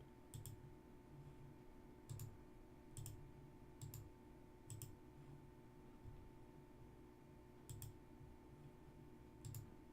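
Faint computer mouse clicks, several of them quick double-clicks, coming every second or two, over a steady faint electrical hum.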